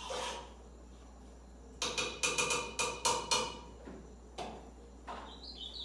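A quick series of sharp clicks and knocks for about two seconds, then near the end an ultramarine grosbeak starts its song, a run of stepped whistled notes.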